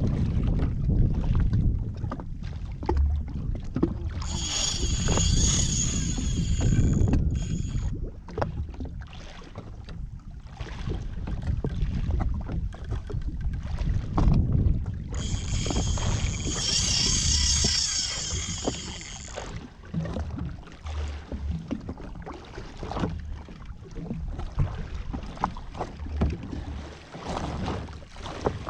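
Wind buffeting the microphone and water slapping against the hull of a drifting jet ski, with many short knocks. Twice, for a few seconds each, a higher whirring joins in, about four seconds in and again about fifteen seconds in.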